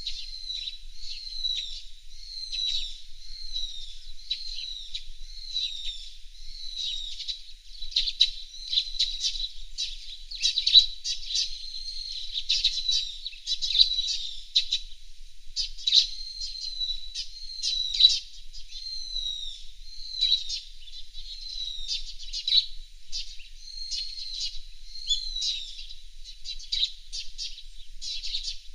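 Small songbird chirping: short, high, sweeping notes repeated over and over at a quick, fairly even pace, with a faint low hum under them.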